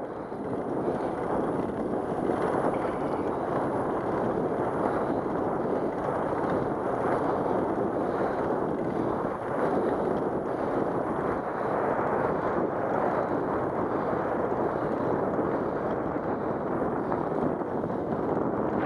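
Steady wind rush on the microphone of a camera moving at riding speed, likely on a bicycle, along a concrete path. It is an even noise with no distinct knocks or clicks.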